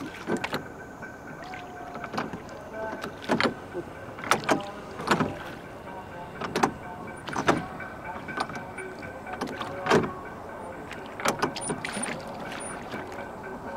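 Rowboat being rowed on a pond: a series of sharp splashes and knocks from the oars in the water, irregular and about one a second, over a steady background hiss.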